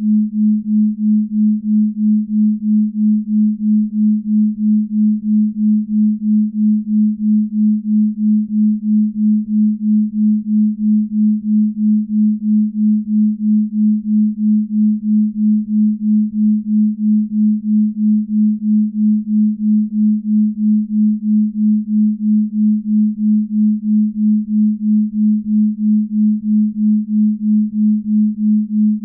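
Binaural-beat tone: a single steady pure tone near 200 Hz whose loudness swells and fades evenly about two and a half times a second, as two slightly detuned tones beat against each other.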